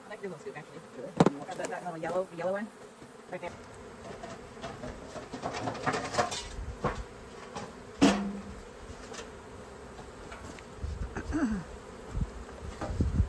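Honeybees buzzing around their exposed comb during a colony removal, with two sharp knocks, one about a second in and a louder one a little past halfway.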